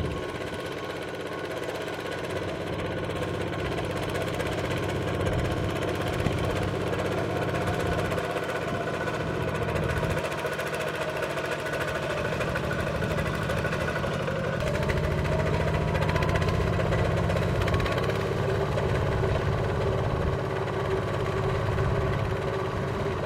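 The motor of a miniature Kubota RT120 walking tractor runs steadily under ploughing load with a fast knocking beat. A faint tone rises in pitch about fifteen seconds in.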